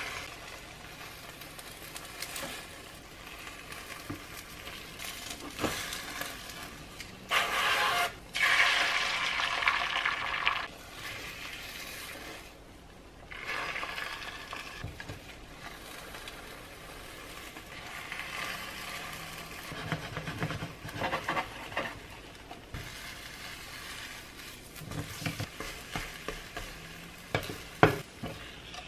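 Beaten egg sizzling in a frying pan as a rolled omelette (gyeran-mari) cooks, with a spatula scraping and turning it. A louder stretch of sizzling comes about a quarter of the way in, and there are small clicks and one sharp knock of utensil on pan near the end.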